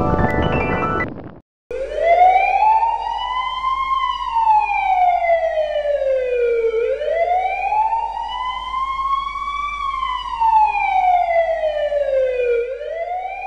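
Emergency-vehicle siren wailing, its pitch rising slowly and falling back about once every five seconds; it comes in about two seconds in, right after a short stretch of mallet-percussion music cuts off.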